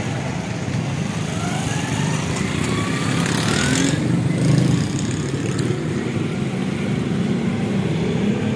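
Street traffic: motorcycle and car engines running steadily. About three seconds in, one vehicle accelerates with a rising engine note.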